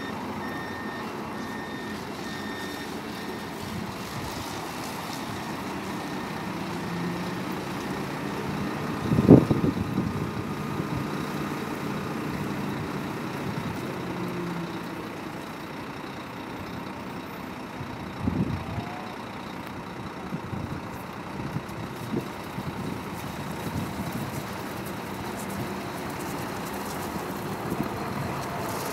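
Coach bus's diesel engine running as the bus manoeuvres, with its reversing alarm beeping steadily for the first few seconds. There is a loud thump about nine seconds in and a smaller one about eighteen seconds in.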